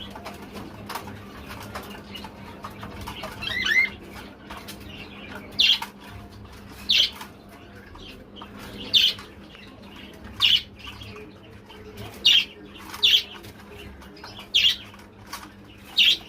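Pet pigeons making a series of short, sharp, high-pitched sounds, one every second or two, over a steady low hum.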